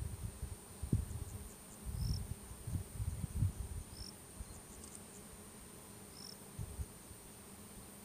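A steady high insect trill with a short high chirp about every two seconds, under wind buffeting the microphone in low rumbles that are strongest in the first half.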